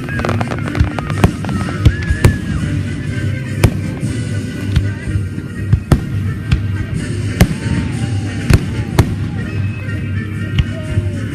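Fireworks going off: a quick run of crackling right at the start, then single loud bangs every second or so at irregular spacing.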